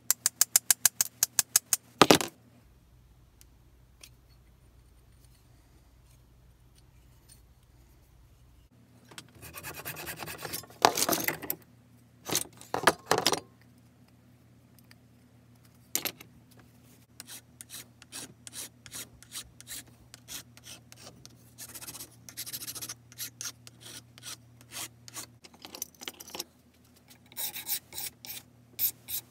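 Hand restoration work on a small Stanley ball peen hammer: a quick rattle of metal clicks near the start, then scraping, and in the second half short repeated rubbing strokes on the wooden hammer handle, a few a second.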